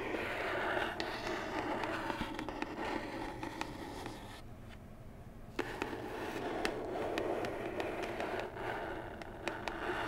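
Long fingernails scratching slowly across a printed cardboard box, a slow, deep scratching with scattered light nail clicks. The scratching eases off briefly in the middle and starts again with a sharp tap.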